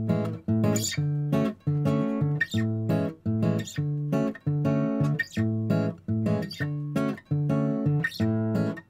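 Intro music: an acoustic guitar strummed in a steady, regular rhythm of chords.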